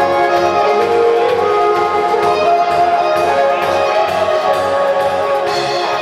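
Live band playing: electric violin carrying the melody over strummed acoustic guitar and a drum kit.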